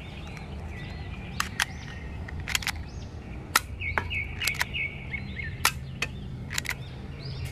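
Toy Glock-style pellet pistol being shot at drink cans: about a dozen sharp clicks and snaps, several in quick pairs, from the spring firing and the pellets striking the tin cans. Birds chirp behind, over a low steady hum.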